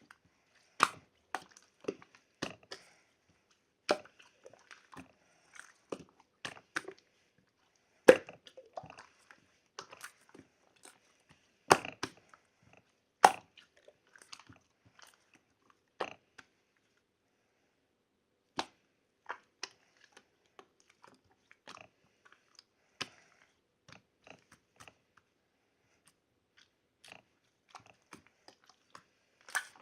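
Someone chewing crunchy food close to the microphone: irregular crisp crunches and clicks, with a pause of about two seconds just past the middle.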